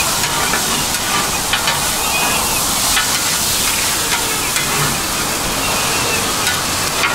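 Shredded cabbage and green onions sizzling on a hot flat griddle. A metal spatula scrapes and clacks against the griddle now and then as it tosses them.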